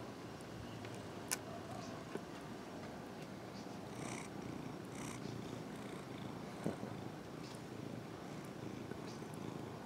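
Domestic cat purring steadily with a fast, even rumble. Two brief clicks stand out, one about a second in and one near seven seconds.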